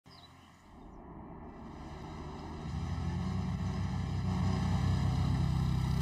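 Side-by-side utility vehicle's engine running, fading in from faint and growing steadily louder.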